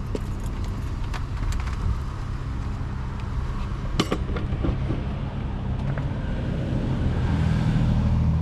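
A vehicle engine idling steadily, growing somewhat louder near the end, with light clicks and clatter and one sharp knock about four seconds in.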